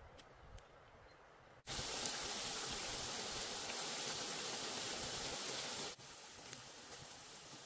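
Battered rings deep-frying in hot oil in a cast-iron pot: a steady sizzle that starts suddenly about one and a half seconds in and drops to a quieter sizzle about six seconds in.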